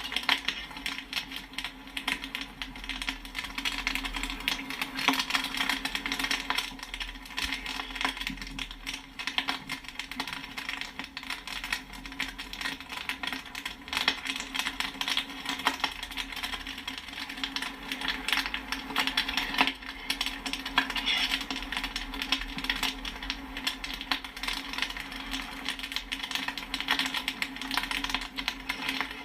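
Popcorn kernels popping in a rapid, irregular, continuous patter, with a steady low hum underneath.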